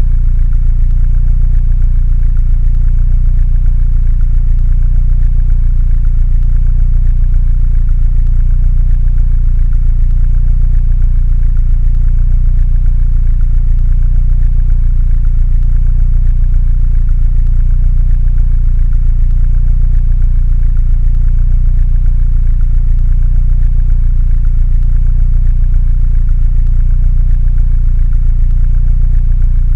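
Mini Cooper engine idling steadily: an even, deep rumble that holds without revving.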